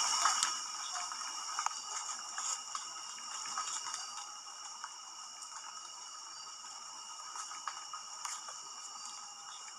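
Night insects, likely crickets, chirring in steady high-pitched tones, with a few scattered faint clicks. The sound slowly grows quieter.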